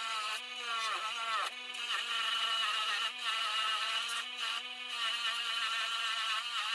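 Electric wire wheel running with a steady motor hum and a hissing scrub of wire on metal as a rusty steel pipe-wrench jaw is cleaned. The pitch dips briefly several times as the jaw is pressed harder into the wheel.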